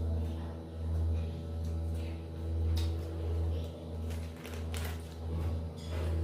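Crunching and chewing of raw vegetables, with a few sharp crunchy bites, over a steady low hum that swells and fades about once a second.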